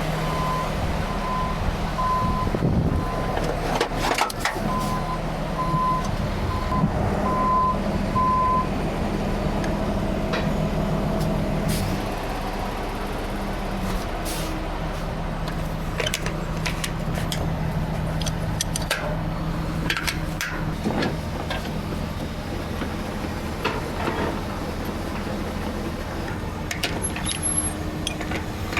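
Heavy diesel engine running steadily while a reversing alarm beeps about once a second, stopping about eight seconds in. The engine keeps running after that, with scattered knocks and clanks of heavy equipment at work.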